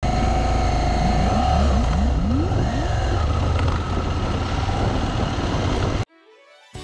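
A motor vehicle engine running, with a quick series of rising revs in the first few seconds. It cuts off suddenly about six seconds in.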